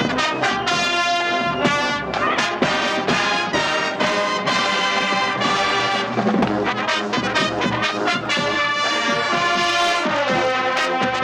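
Marching band playing loud brass music, sustained horn chords over drum strokes.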